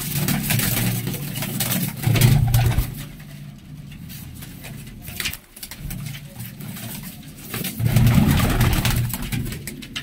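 Domestic pigeons cooing in a loft, in three low spells: at the start, about two seconds in, and loudest around eight seconds.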